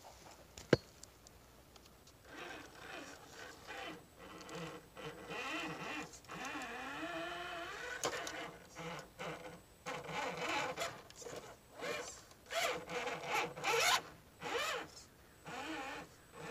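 Axial UMG10 RC rock crawler's electric motor and geared drivetrain whining in short stop-start throttle bursts, the pitch wavering and rising in a longer burst around the middle. There is a sharp knock about a second in.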